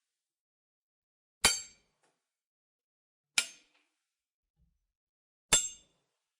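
Three sharp metal-on-metal sword strikes, about two seconds apart, each a bright clink that rings out briefly.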